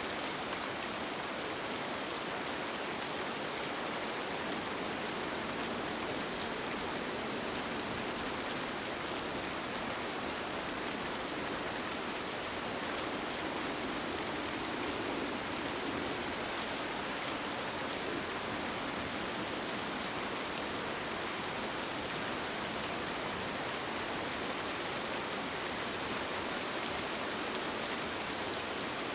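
Steady rain, an even hiss with scattered single drops ticking close by.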